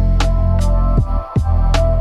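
Background instrumental music with a steady beat of drum hits and deep kicks under sustained tones, dipping briefly just past the middle.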